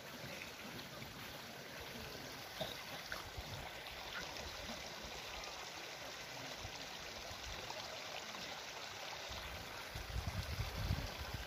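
Steady outdoor background hiss on a hilltop campsite, with a few low rumbling gusts on the microphone near the end.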